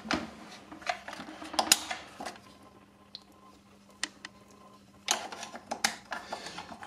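Handling noise: scattered light clicks and knocks from hands on the plastic housing of a chainsaw, busier near the end, over a faint steady hum.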